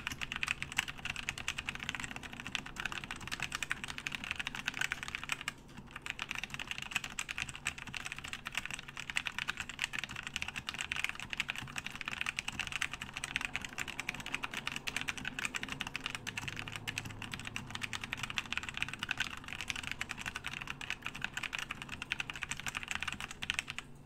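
Fast typing on a Tecware Phantom tenkeyless mechanical keyboard with Outemu Red linear switches: a dense, continuous clatter of keystrokes, with a brief pause about five and a half seconds in.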